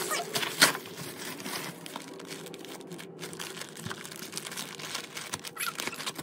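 Plastic packaging crinkling and rustling as a package is pulled out of a padded plastic mailer and handled. There is one sharp crackle about half a second in.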